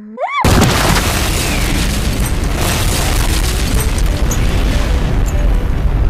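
A cartoon girl's high, rising "ah" of a sneeze wind-up, cut off about half a second in by a sudden, very loud explosion sound effect that goes on as a long, heavy blast.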